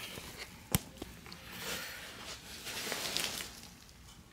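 Handling noise from a coat and its plastic wrapping being moved about: a sharp click just under a second in, then a soft rustle that fades out near the end.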